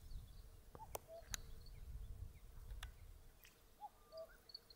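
Faint birds calling: a few short whistled notes, then a quick series of high chirps near the end, with a few sharp clicks in between.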